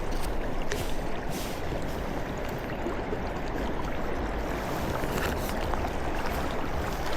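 Steady rush of flowing river water, with a few faint ticks in the first couple of seconds.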